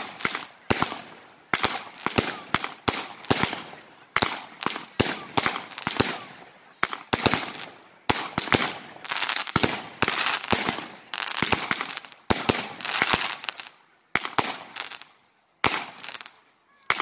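Aerial fireworks bursting overhead in a rapid series of sharp bangs, one to several a second, each trailing off before the next, with a short lull shortly before the end.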